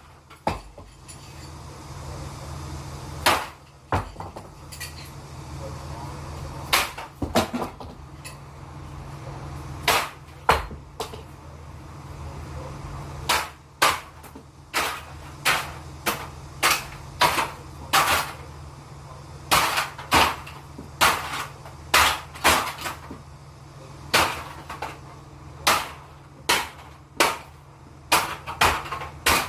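A series of about thirty sharp cracks and knocks at irregular intervals, coming closer together in the second half: handgun shots and knife blows striking a target body. A steady low hum runs underneath.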